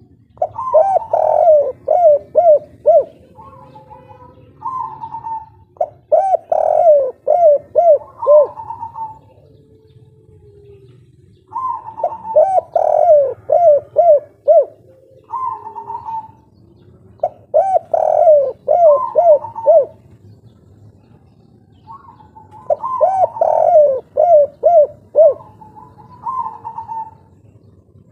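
Spotted dove (tekukur), a 'kuk 3' song bird, cooing loudly in repeated song phrases a few seconds apart, each a quick run of low coos.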